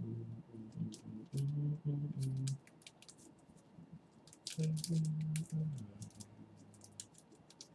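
Scattered light clicks and taps, with a low steady tone sounding in two stretches: through the first two and a half seconds, and again about halfway through, fading lower near the end.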